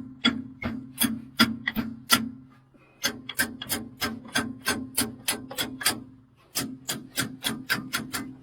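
Rhythmic scraping strokes by hand, about three a second, in runs broken by two short pauses, over a steady low hum.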